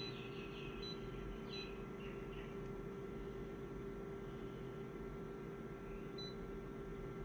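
Steady electrical or machine hum with a faint high steady whine above it, and a couple of very short faint high pips.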